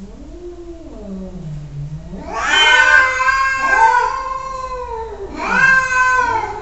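Domestic cat yowling (caterwauling) in long, drawn-out wails that bend up and down in pitch. A lower falling call comes first, then two louder wails start about two seconds in and near the end.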